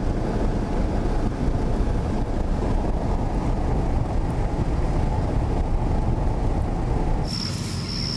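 Steady road and engine noise inside a moving Ford's cabin, a dense low rumble. It cuts off about seven seconds in, giving way to a steady high-pitched tone over a low hum.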